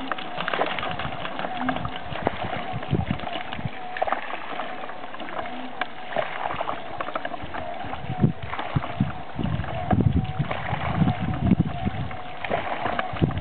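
Water jet from a homemade solar-powered pump spraying onto a pond surface with steady splashing, over a steady, slightly wavering whine from the pump's drive. Wind rumbles on the microphone, mostly in the second half.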